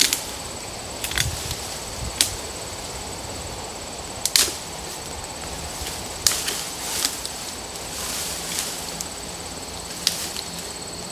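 Brush and small branches being broken and pulled down with gloved hands: a string of sharp snaps and swishes a second or two apart, the loudest about four seconds in.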